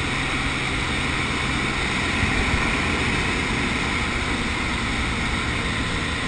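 Steady drone of a small propeller plane's engine and propeller in flight, with rushing air, heard inside the cabin.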